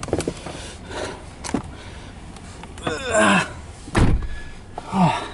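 Short wordless vocal sounds from a man, one falling in pitch near the end, with a single heavy thump about four seconds in.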